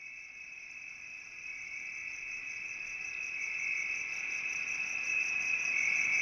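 A steady, high, fast-pulsing trill like a cricket's, growing gradually louder.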